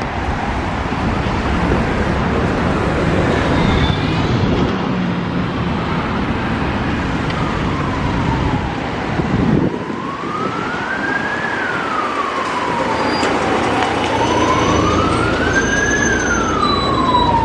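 Heavy road traffic passing close by, with cars, vans and lorries rumbling past. From about a third of the way in, a fire engine's siren wails, slowly rising and falling in pitch and growing clearer toward the end.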